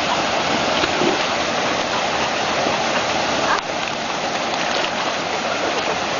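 Steady rushing of flowing stream water, dipping slightly in level about three and a half seconds in.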